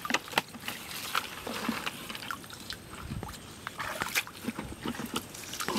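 Irregular wet squelches, drips and small splashes of a hand working through mangrove mud and shallow water, with scattered sharp clicks.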